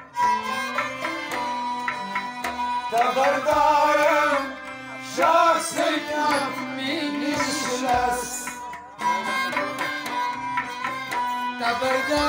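Harmonium playing held chords with hand-drum strokes, and a man singing in two or three phrases over it.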